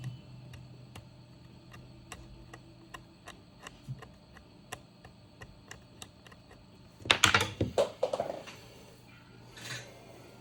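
Small clicks and taps of hand tools working on a laptop circuit board during trace repair, spaced irregularly, with a louder burst of scraping and clatter about seven seconds in.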